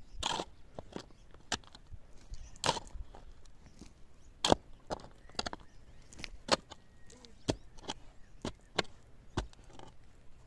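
Steel shovel blade digging into dry, stony soil, scooping and scraping out earth: a string of sharp, uneven strikes, the loudest about four and a half seconds in.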